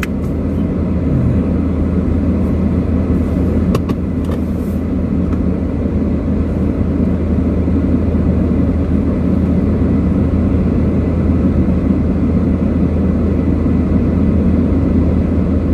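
Steady rumble of a car's engine and tyres, heard from inside the cabin while driving in traffic. A few faint clicks come about three to four seconds in.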